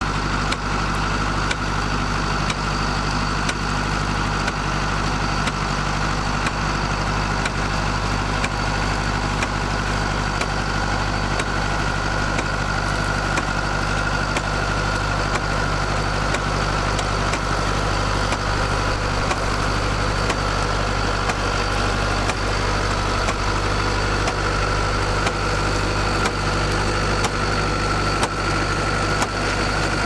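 International Harvester 744's diesel engine running steadily as the tractor pulls a loaded manure spreader across the field.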